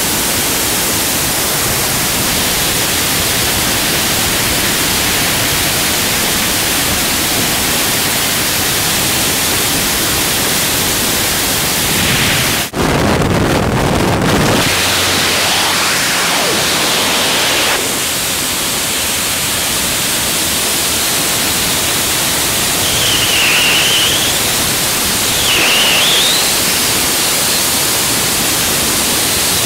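Freefall wind rushing loudly and steadily over a skydiver's helmet-camera microphone. Near the middle, a brief cut brings a louder, deeper rush with a low rumble at the aircraft door, from the aircraft's engine and propeller wash at exit. The freefall wind then resumes, with a faint whistle that dips and rises twice near the end.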